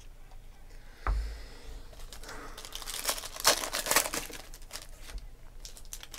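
A single thump about a second in, then a Panini Prizm football card pack's foil wrapper crinkling and tearing as it is handled and ripped open by hand.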